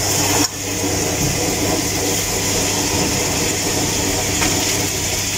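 Boiled noodles drained from a pot into a plastic colander in a stainless steel sink: hot water pouring and splashing down, over a steady hiss.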